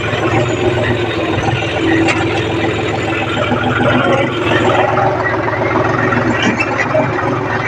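John Deere 5050D tractor's three-cylinder diesel engine running steadily, heard close up from the driver's seat.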